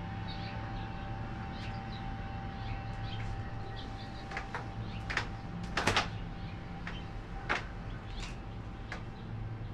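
Outdoor ambience: small birds chirping in short calls while the tones of a wind chime ring on and slowly die away, over a steady low hum. A few sharp clicks or knocks stand out in the middle, the loudest about six seconds in.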